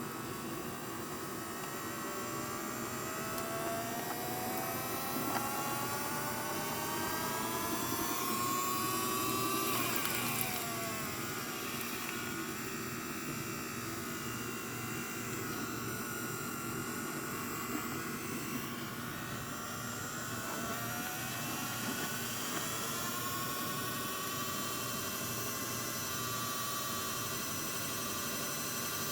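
Mini washing machine's small electric motor running under a load of clothes, its whine rising in pitch over several seconds, then dropping abruptly and climbing again in repeated cycles as the agitator changes direction.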